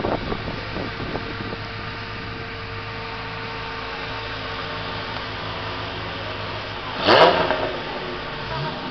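Car engines idling in a slow queue. About seven seconds in, a Ferrari 430 Scuderia's V8 gives a sharp, loud rev that rises steeply in pitch and falls back, with a smaller rev near the end.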